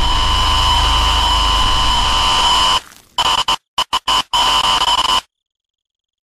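Loud, distorted static-like noise edited in as an effect: a steady high whine over a deep hum. About three seconds in it breaks into a choppy on-off stutter, then cuts off abruptly to silence about five seconds in.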